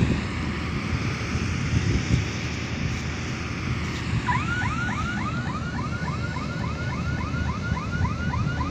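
Balkar 654 combine harvester's engine running steadily under load while it cuts paddy. About four seconds in, a rapid repeating chirping tone starts, about four chirps a second, like an electronic warning or alarm.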